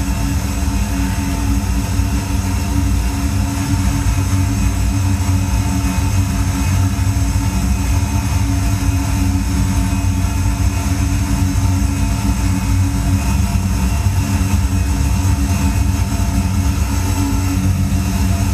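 A loud, steady low rumbling drone with a few sustained tones above it, unchanging throughout, like the hum of an engine or a train cabin: the electronic sound score for a contemporary dance piece.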